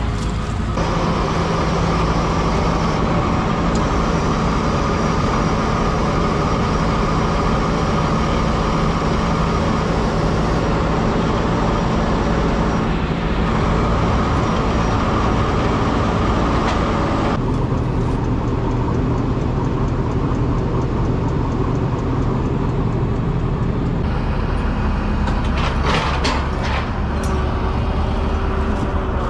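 Heavy farm vehicle's diesel engine running steadily under way, a deep steady drone. Its tone changes abruptly several times.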